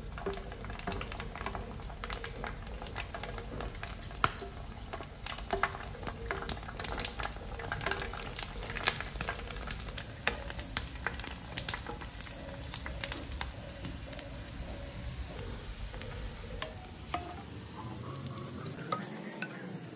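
Puris for pani puri deep-frying in hot oil in a pan: a steady sizzle with frequent sharp crackling pops as the dough discs puff up into crisp balls.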